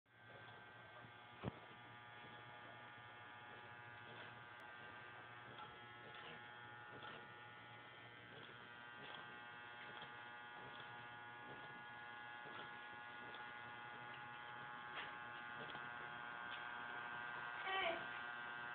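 A steady electrical buzz holding several fixed tones, with a sharp click about a second and a half in and a few faint ticks.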